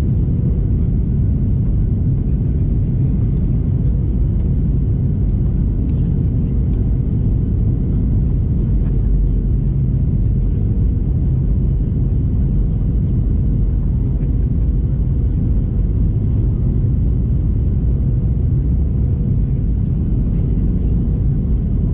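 Steady cabin noise inside a Boeing 737: the low rush of airflow and the CFM56 jet engines, with a faint steady hum above it.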